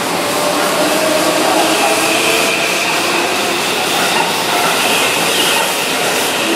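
Keihan 9000-series electric train running alongside a station platform, with the whine of its VVVF inverter motors over the rumble of wheels on rail.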